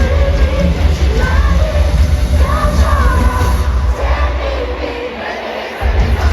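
Live pop concert heard from the arena floor: a female singer over a heavy bass beat, with the crowd audible beneath. The bass drops out for about two seconds in the second half, then comes back in.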